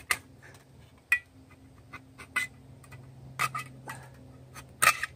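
Knife tip being tapped through the lid of a tin can with a baton to open it without a can opener: sharp metallic taps, about one a second and irregularly spaced.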